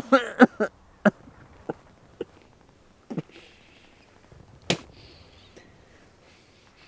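A wounded man coughing into a handkerchief: a rough fit of coughs at the start, then single coughs at irregular gaps, the sharpest a little past two-thirds of the way in.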